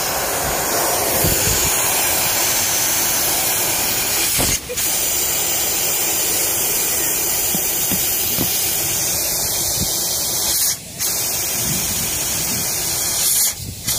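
Air hissing steadily out of a Toyota SUV's tyre as it is deflated for driving on sand; the hiss breaks off briefly three times.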